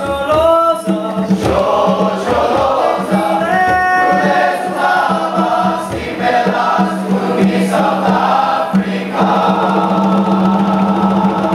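Boys' school choir singing.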